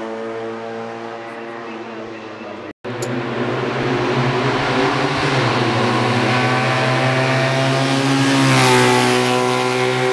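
Hill-climb race car engines running at high revs. One car's engine holds a steady note and slowly fades, then after a short break another car's engine grows louder, its pitch rising as it nears and peaking shortly before the end.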